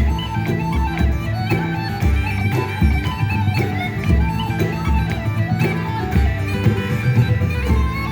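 Traditional instrumental music: a pipe or fiddle melody running over a steady drone, with a strummed accompaniment keeping a beat about twice a second.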